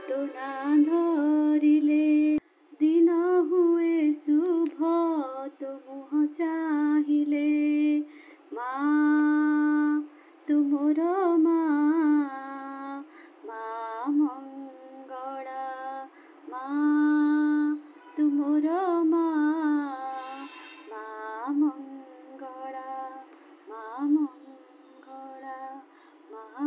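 A woman singing a devotional bhajan to Maa Mangala, a single voice in slow phrases with long held notes and ornamented glides between them, and short pauses between lines.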